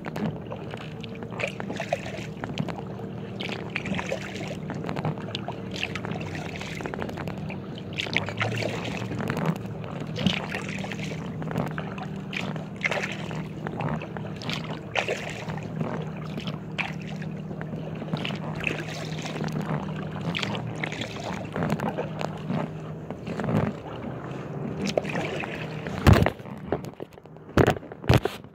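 Paddle strokes of an inflatable kayak dipping and splashing in the river water, one after another, over a steady low hum. A few sharp knocks near the end.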